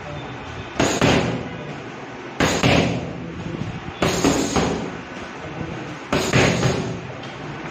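Boxing gloves smacking focus mitts in quick combinations: four bursts of two or three rapid hits, spaced about one and a half to two seconds apart.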